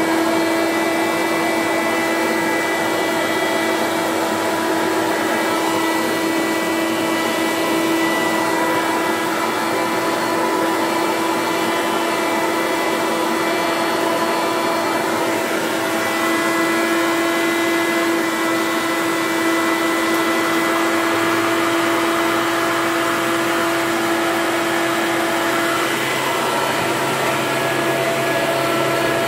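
Hoover Commercial Dual Purpose C1417 upright vacuum cleaner running steadily just after being switched on, its motor and fan giving a steady pitched whine over a rushing hiss. The owner suspects the cooling fan is clogged with debris.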